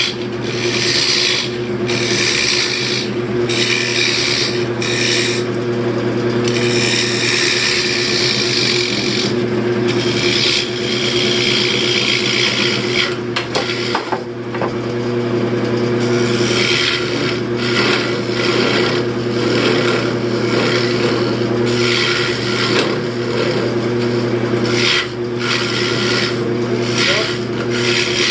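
Wood lathe running with a steady motor hum while a turning tool cuts a wooden bowl, giving repeated scraping strokes as the tool is pushed into the spinning wood, with one longer cut and a short lull midway.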